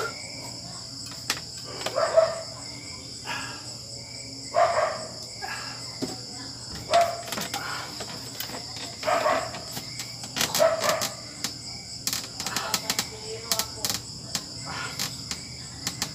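Insects chirring in a steady high trill, with short breathy, voice-like sounds about every two seconds that fit the lifter's repeated rowing effort.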